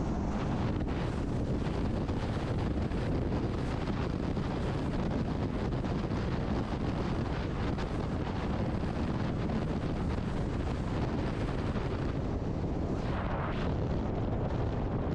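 Steady rush of wind noise on the microphone with road noise from a car travelling at freeway speed.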